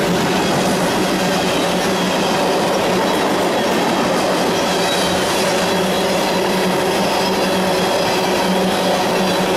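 CSX freight train's tank cars rolling past close by at speed: a steady, loud noise of steel wheels on rail, with a constant hum under it.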